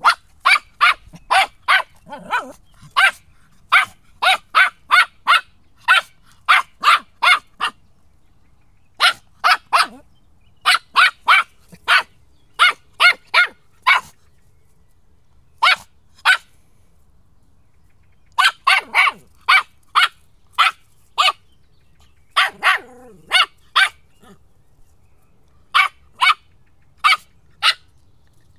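A three-month-old border terrier puppy barking in quick runs of three to six high, sharp barks, with short pauses between the runs.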